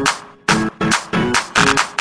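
Hardstyle electronic dance track playing: short, rhythmic synth chord stabs with little bass under them, with a brief gap about a quarter of a second in.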